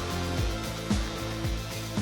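Background music with a steady beat, its kick drum hitting about twice a second.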